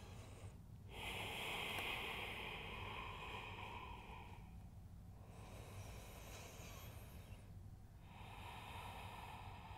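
A woman breathing slowly and deeply while holding a yoga stretch, close to the microphone: three long, airy breaths of a few seconds each, with short pauses between them.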